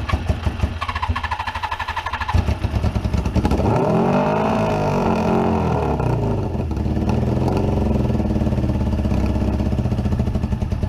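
Suzuki GS550 air-cooled inline-four cranking on the electric starter, catching a little over two seconds in, revving up and back down, then running steadily. It is running on carburettor-cleaner spray, the carbs not drawing petrol: suspected fuel starvation.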